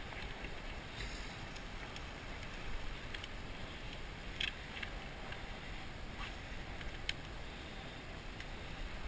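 Steady wind noise on the microphone with a low rumble, and a few faint clicks as hands rig a bait strip onto a jig hook.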